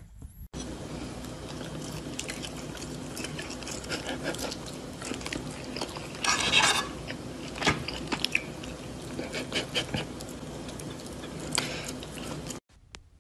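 Fork and knife clinking and scraping on a plate, with chewing and biting on food, over a steady background hiss; the loudest scrape comes about midway. The sound starts abruptly just after the start and cuts off near the end.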